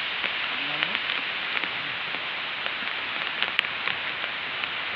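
Steady hiss of water, dotted with many small ticks and patters. A brief human voice sounds about a second in.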